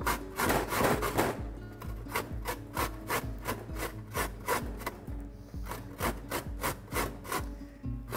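Carrot being grated on a stainless-steel box grater: a steady run of rasping strokes, about three a second.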